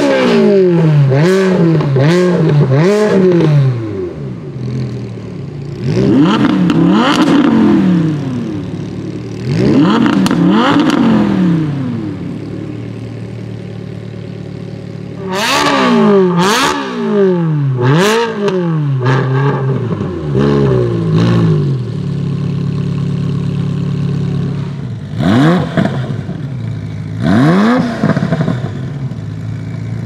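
Supercar engines revved hard from idle in sharp, repeated blips that rise and fall quickly, with steady idling between the bursts. First an Audi R8 V10 Plus's V10, later a Ferrari 360 Spider's V8.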